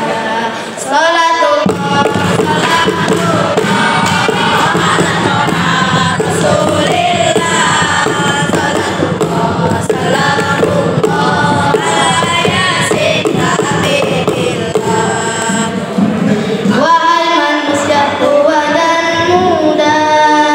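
A boys' nasyid group singing together into microphones, several voices at once over a steady low drone that drops out near the end.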